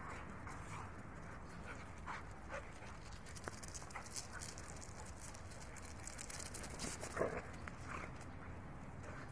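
Two pit bulls play-fighting, giving a few short huffs and whimpers, the loudest about seven seconds in, over scratchy scuffling of paws on concrete.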